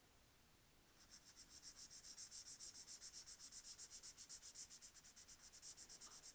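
Marker scribbling back and forth on paper, colouring in a filled area with quick, even strokes of about ten a second, starting about a second in.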